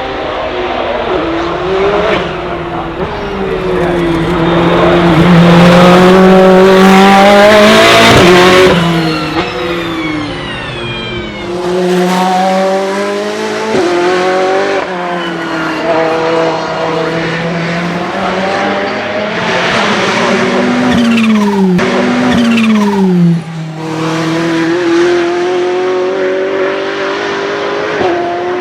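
Ferrari P80/C's 3.9-litre twin-turbo V8 revving hard. Its note climbs and falls several times, with a long, loudest pull about five to nine seconds in.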